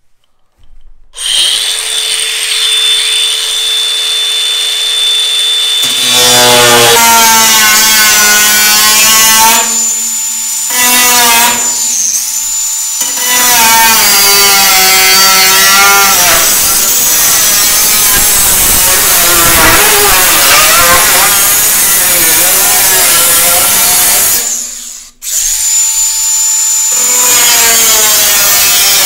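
DeWalt 20V Max cordless angle grinder with a 4-1/2 inch cut-off wheel. It starts about a second in and spins free with a steady whine for a few seconds, then bites into the sheet-steel roof panel and cuts with a harsh grinding. It eases off briefly a couple of times, stops for a moment near the end, then starts up and cuts again.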